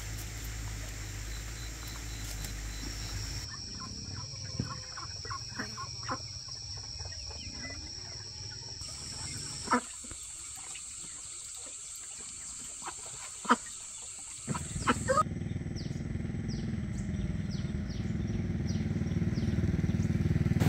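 Outdoor ambience with bird calls and a steady high-pitched hum, changing abruptly several times. A few sharp knocks stand out, the loudest about ten and thirteen seconds in, and short falling chirps come near the end.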